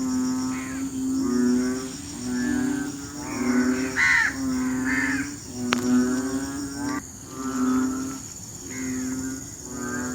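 Frogs calling in a rainy-season mating chorus: low, pitched, droning croaks repeating about once a second, several callers overlapping. A single sharp click about halfway through.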